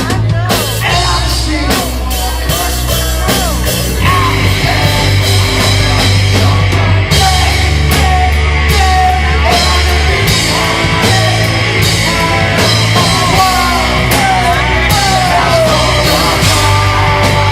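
Loud rock music: a drum kit and bass notes that change every few seconds, under a singing voice.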